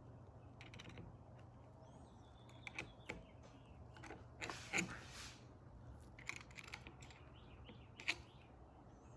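Scattered metal clicks and taps from handling the all-metal mechanism of a vintage sewing machine while it is being oiled, over a low steady hum. The two loudest clicks come about halfway through and near the end.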